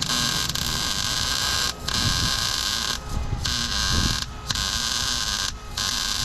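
Electric welding arc crackling steadily as steel front-end pieces are tack-welded, stopping briefly several times between tacks.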